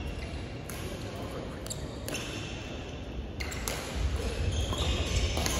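Badminton play on a wooden sports-hall floor: short high shoe squeaks, scattered sharp knocks of racket hits and footfalls, echoing in a large hall. A low rumble grows louder about four seconds in.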